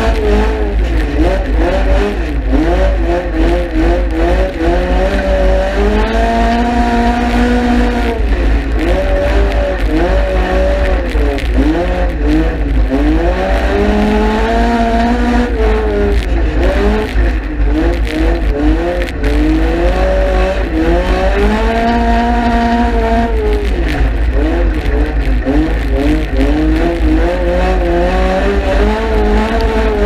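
Honda Civic EG hatchback dirt race car's engine heard from inside the cabin. It revs up in pitch for a second or two, then drops back, again and again as it laps the track, over a heavy steady low rumble.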